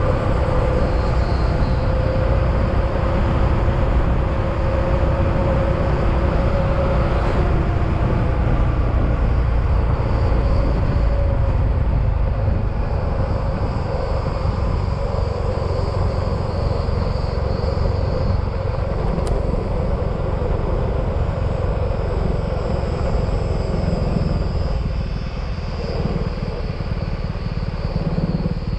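Yamaha XMAX scooter riding along the road: a steady engine drone mixed with a dense rush of wind and tyre noise, easing off slightly in loudness near the end.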